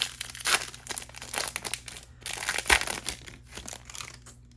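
Foil wrapper of a Panini Select basketball card pack crinkling and tearing as it is ripped open: a rapid run of irregular crackles that stops shortly before the end.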